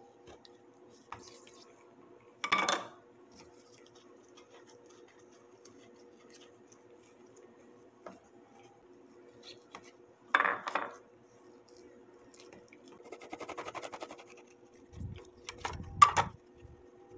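A kitchen knife and utensils knocking and clattering on a glass cutting board as bread rolls are cut and filled. There are a few sharp clatters and a short, rapid scraping rasp past the middle, over a faint steady hum.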